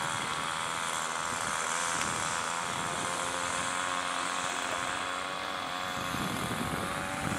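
Electric ducted fan of a radio-controlled jet, a JF 110 fan unit driven by an 840kv HET motor, whining steadily with a rushing hiss as the jet flies.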